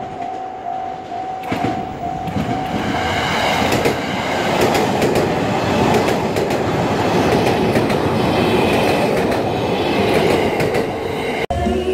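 Narita Express electric train (E259 series) passing close by at a level crossing: a loud rushing of wheels and car bodies with a regular clatter of wheels over rail joints, building up about two seconds in. The crossing's warning bell rings at first, then fades under the train.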